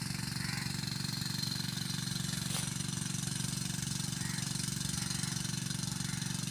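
An engine running steadily with an even, low pulsing drone, and a faint click about halfway through.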